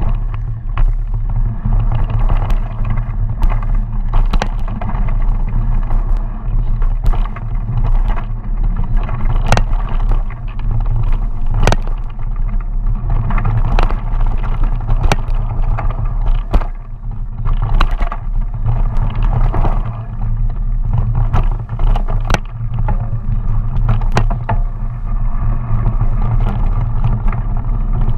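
Mountain bike riding fast down a dirt trail, heard through a camera on the handlebars: a steady low rumble of wind and tyre vibration, broken by frequent sharp clacks and rattles as the bike hits bumps.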